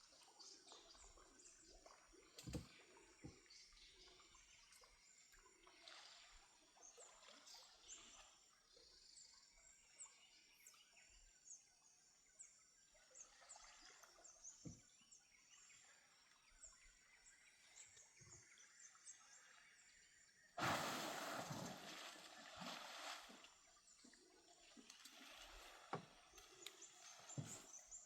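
Faint rainforest ambience with many short, high bird chirps and scattered small clicks. About two-thirds of the way through, a sudden loud noisy burst lasts about three seconds, then fades back to the chirping.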